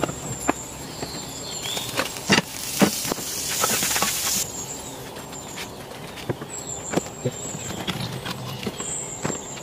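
Cooking sounds: scattered knocks and clicks of a knife and utensils on a wooden board, with a couple of seconds of sizzling from a hot greasy pan in the middle as a spatula works in it.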